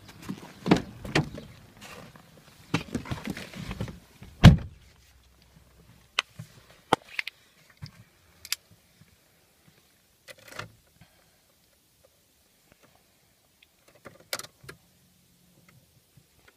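Volkswagen Passat car door being opened and someone climbing in with rustling and knocks, then the door slammed shut loudly about four and a half seconds in. Then small clicks of keys, and a louder click near the end as the key turns to the on position, followed by a short low hum: the ignition is on and the diesel's glow plugs are preheating, with the engine not yet started.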